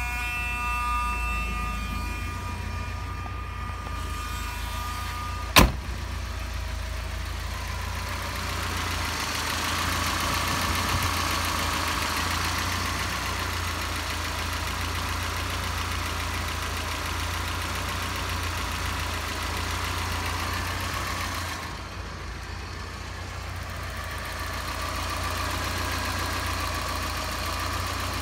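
A 1986 Alfa Romeo Spider's twin-cam four-cylinder engine idling steadily, heard close up over the open engine bay while it is still warming up after a cold start. There is a single sharp bang about five and a half seconds in.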